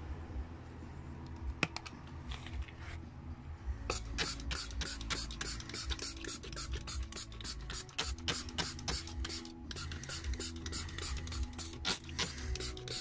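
Hand trigger sprayer pumped again and again, each pull giving a short hissing spritz of wheel cleaner onto an alloy wheel. The spritzes come about three or four a second from about four seconds in, over a low steady rumble.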